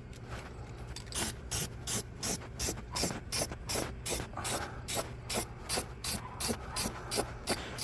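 Aerosol can of rust paint spraying in short, rapid bursts, about three hisses a second.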